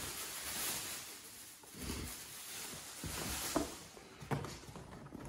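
Faint rustling and a few soft clicks as the plastic body shell of a large-scale RC truck is handled.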